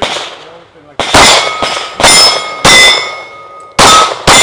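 A rapid string of handgun shots at steel targets, starting about a second in, with steel plates ringing out as they are hit.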